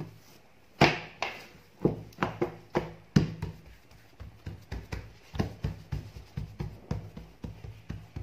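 Soft brioche dough being handled on a covered tabletop: a few dull slaps in the first three seconds as it is laid down, then quicker, lighter pats as it is pressed flat by hand, about three a second.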